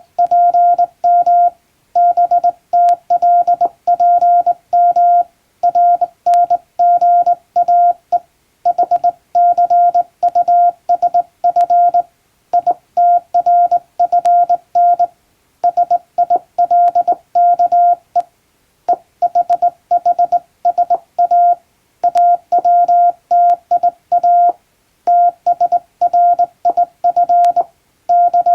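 Morse code sent by hand on a straight key, heard as a single steady beeping tone switched on and off in dots and dashes. The characters come in groups, with short pauses between words.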